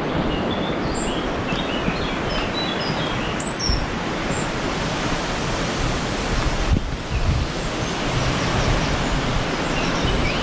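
Small birds chirping again and again over a steady, loud rushing noise.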